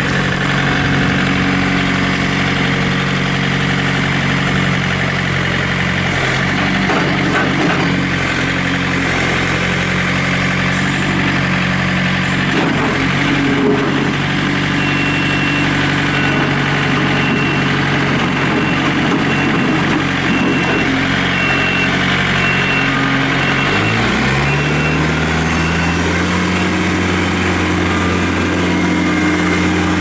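2005 John Deere 110 tractor loader backhoe's 43 hp diesel engine running steadily while the machine is driven on gravel; about 24 seconds in the engine speeds up and holds at the higher pitch. From about halfway a high beep sounds about once a second.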